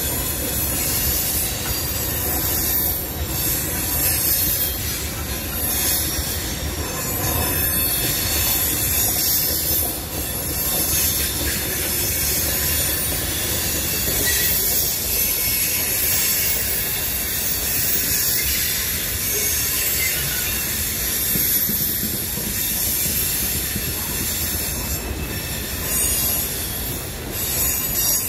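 Loaded coal hopper cars rolling past on steel rails: a steady low rumble of wheels with a continuous high-pitched wheel squeal over it.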